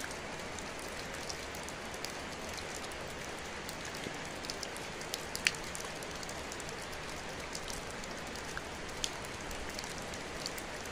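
Water dripping from a rock overhang, scattered drops ticking irregularly over a steady hiss, with one sharper drop about halfway through.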